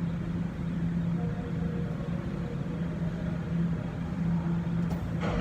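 Steady low hum of an idling engine, swelling and fading slightly.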